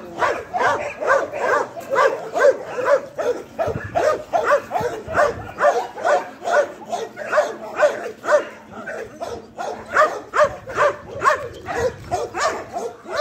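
Dogs barking in quick succession, about three short barks a second without a pause, while wrestling in rough play.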